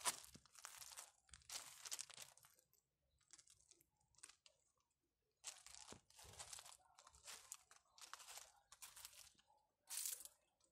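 Faint footsteps crunching on loose river-pebble gravel, in irregular steps with short pauses between them.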